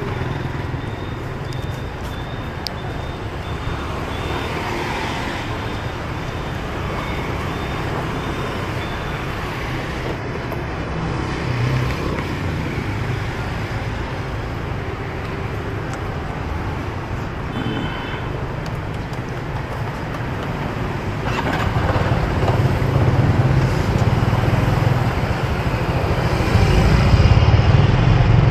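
City street traffic: motorbikes and cars passing, a steady rumble of engines and tyres. A high, repeated beeping sounds through the first several seconds, and the engine rumble grows louder near the end.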